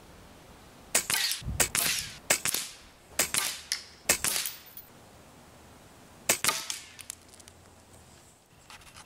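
Air Venturi Avenger .22 PCP air rifle shots and pellet hits on plastic toy targets: a quick run of sharp cracks over a few seconds, then a few more about six seconds in.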